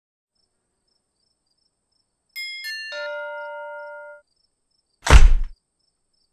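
A three-note chime stepping down in pitch, the last note ringing for about a second, added as an editing sound effect over a title card. About a second later comes a short, loud burst of noise.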